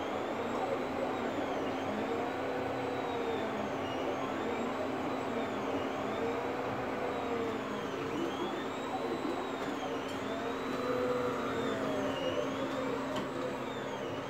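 FDM 3D printer running a print: its stepper motors whine as the print head travels around a tall PLA part, the pitch rising and falling in smooth sweeps a little over once a second, over a steady hum.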